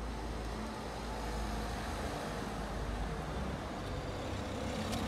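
Steady rumbling noise of a road vehicle or passing traffic.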